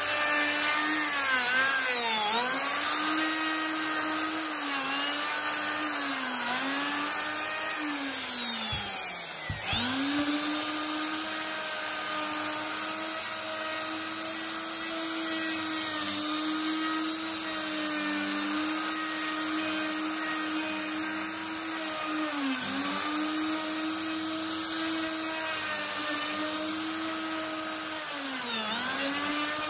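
Endico electric plunge router running at high speed, its bit cutting grooves into wood. The high steady whine sags in pitch several times as the motor is loaded in the cut, and drops away sharply for a moment about nine seconds in before coming back up to speed.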